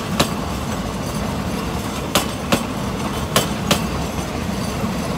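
Railway passenger coaches rolling past, their steel wheels clacking sharply over a rail joint whose bolts are loose. The clacks come in pairs as each bogie's two axles cross the joint, over a steady rolling rumble.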